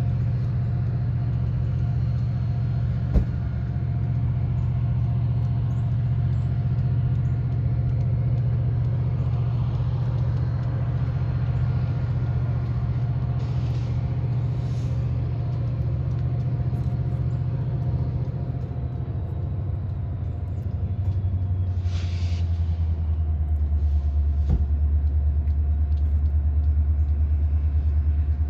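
Diesel-electric switcher locomotives working a rail yard: a steady low diesel rumble whose pitch drops and grows louder about two-thirds of the way through. A sharp click comes a few seconds in, and short bursts of air hiss come twice, the second one louder.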